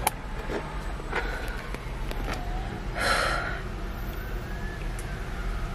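Steady low rumble of a car, with a few faint clicks and a short hiss about three seconds in.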